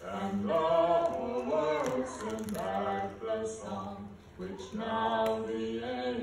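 Voices singing with held notes, a short break about four seconds in.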